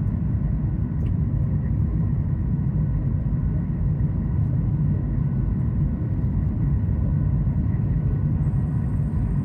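Steady low rumble inside the cabin of a Boeing 737 MAX 8 during takeoff, from its CFM LEAP-1B engines and the rushing air, with a faint steady whine over it.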